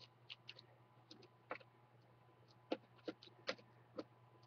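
Faint, scattered small clicks of a PH1 precision screwdriver turning out a screen mounting screw from a laptop's metal mounting tab.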